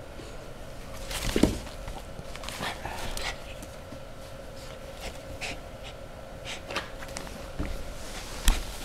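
Two puppies playing and tussling: scattered short bursts of snuffling, panting and scuffling, the loudest about a second and a half in, with a sharp knock near the end. A faint steady hum lies underneath.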